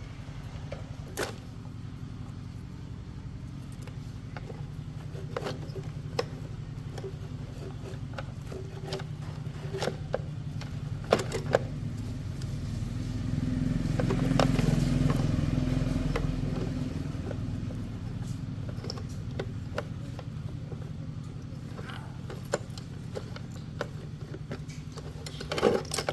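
A steady low machine hum that swells for a few seconds around the middle and then fades, with scattered clicks and taps.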